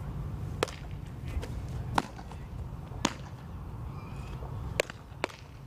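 Five sharp smacks at uneven intervals, the last two close together near the end, over a steady low background rumble.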